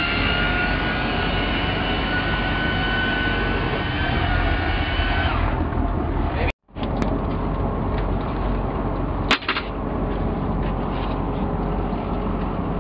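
Steady running noise of a sport-fishing boat's engine, with a steady whine that fades out about five and a half seconds in. The sound drops out for a moment about six and a half seconds in, and there is a sharp click about nine seconds in.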